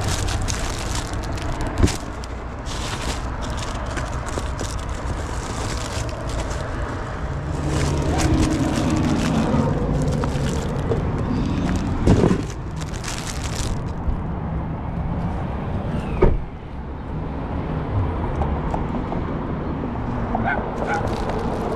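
Crinkling plastic hand-warmer packets and a cardboard box being handled, over a steady low rumble of wind and traffic. A low pitched sound runs for a few seconds near the middle, and there are two sharp knocks, one about twelve seconds in and one about four seconds later.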